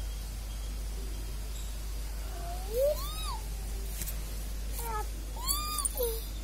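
Young puppy whining: a few short, high cries that rise and fall in pitch, one about two and a half seconds in and two or three more near the end.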